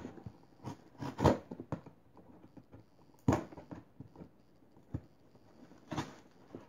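A mailed shipping box being worked open by hand and proving tough to open: irregular scratching and rustling, with a few sharp knocks or tears about one, three and six seconds in.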